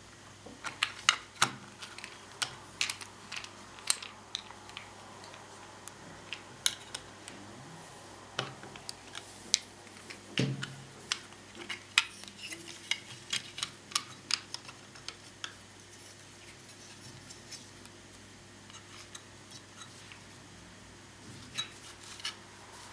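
Small tools and laptop cooling-fan parts being handled on a work surface: irregular sharp clicks and clinks, dense for the first dozen seconds with a duller knock about ten seconds in, thinning out later.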